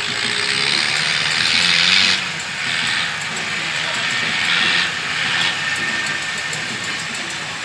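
Small Fendt tractor's diesel engine running as it drives a slalom course, heard faintly under a loud hiss that surges and eases in stretches over the first five and a half seconds.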